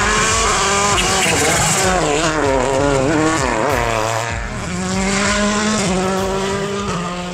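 Rally car engine revving hard. Its pitch rises and falls repeatedly with throttle and gear changes, then holds steadier in the second half.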